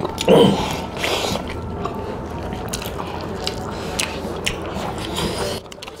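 Close-miked eating by hand: wet chewing and the squish of rice and curry being mixed and scooped with the fingers, with many small mouth clicks. The sound drops away shortly before the end.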